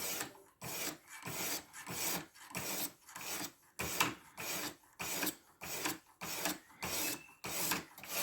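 Diamond stone of a guided knife sharpener stroked back and forth along a 14C28N steel blade edge at a 15-degree angle, a rhythmic gritty scraping at about two strokes a second.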